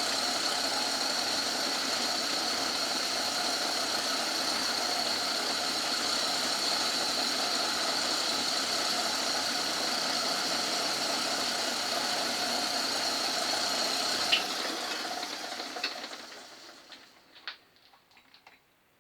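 Old Myford lathe running steadily with a high whine over a lower hum while taking a light ten-thou cut. About fourteen seconds in it is switched off and spins down, followed by a few small clicks.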